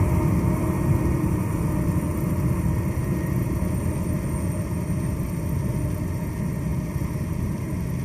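Vervaet Q616 self-propelled sugar beet harvester running in the field: a steady low engine and machinery noise that fades slightly as the machine moves away.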